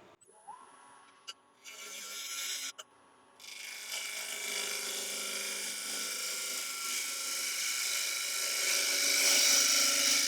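Wood lathe spinning up, then a turning tool cutting across the face of a spinning Iroko bowl blank to true it up: a short cut, then a long steady hissing scrape of tool on wood.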